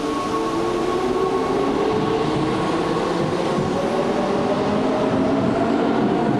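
Keihan 2600 series electric train pulling out, its traction motors whining and rising slowly in pitch as it gathers speed, over wheel and rail noise.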